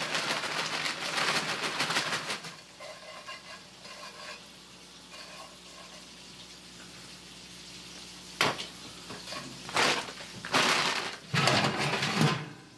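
Frozen crinkle-cut fries pouring from a bag and rattling into a cast-iron skillet for the first two seconds or so. Near the end come a few metal knocks and scrapes as the oven rack holding the skillet is handled.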